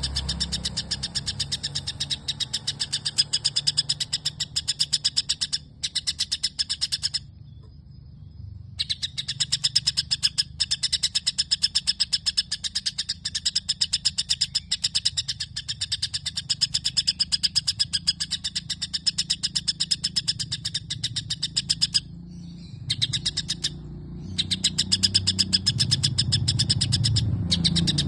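White-rumped shama (murai batu) singing a long run of house-sparrow-like chirps in imitation, many short chirps a second. The song breaks off for about a second twice, once about a third of the way through and again near the end.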